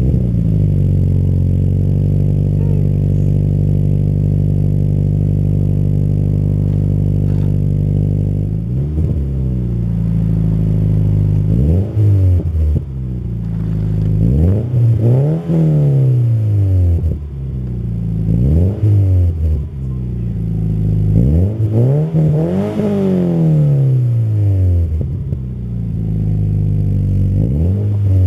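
Subaru BRZ's 2.0-litre flat-four boxer engine through a newly installed Invidia N1 cat-back exhaust, loud, deep and rumbly: it settles from its start-up flare into a steady fast idle, then from about eight seconds in is blipped in a series of short revs, each rising and falling quickly, the highest a little past the two-thirds mark.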